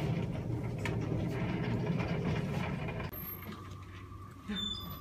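Indistinct room noise with a steady low hum, which drops abruptly about three seconds in to quieter room tone carrying a faint steady tone.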